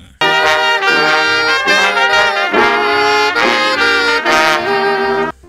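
A brass band playing a tune together: sousaphone, trombone, saxophones and trumpet. It starts suddenly just after the beginning and cuts off abruptly near the end.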